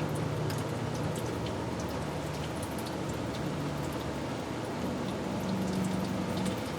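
Automatic transmission fluid pouring out around a loosened transmission oil pan: a steady trickle with scattered drips.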